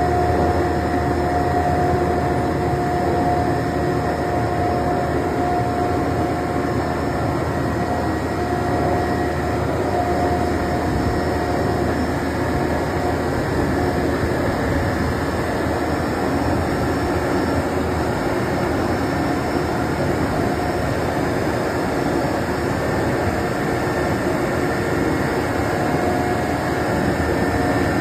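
Self-loading concrete mixer truck running steadily, its engine and machinery giving a constant drone with a steady whine.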